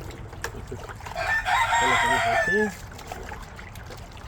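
A rooster crows once, starting about a second in and lasting about a second and a half, with lower, shorter chicken calls under its end.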